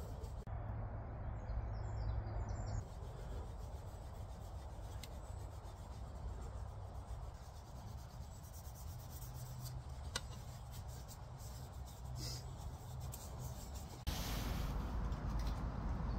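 Hands rubbing and turning a freshly carved wooden spoon, with light rubbing and faint ticks of skin and fingers on the smooth wood. About fourteen seconds in, it gives way to louder, steady outdoor background noise.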